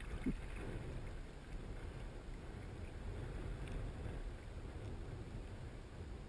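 Steady low rumble of wind on the microphone, with water lapping against a kayak's hull.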